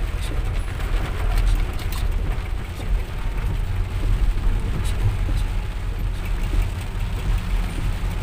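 Car interior noise while driving through heavy rain: a steady low rumble of the car on the road, with scattered ticks of raindrops hitting the windscreen and roof.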